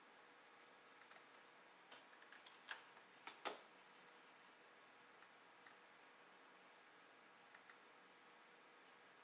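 Computer mouse clicking: about a dozen short, faint clicks, several close together in the first few seconds and the loudest about three and a half seconds in, then a few spaced-out pairs, over near-silent room tone.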